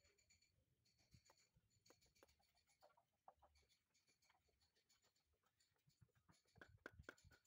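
Near silence, with faint scraping and clicking as concrete blocks are handled and set onto mortar; a few louder clicks come near the end.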